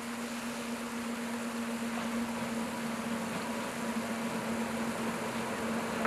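Small narrow-gauge diesel locomotive hauling a train of passenger coaches, its engine running with a steady hum under a hiss and slowly growing louder as it approaches.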